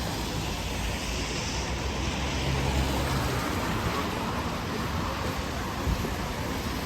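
Street traffic on a wet city road: a steady hiss of tyres and rain, with the low engine rumble of a passing vehicle from about half a second to three and a half seconds in.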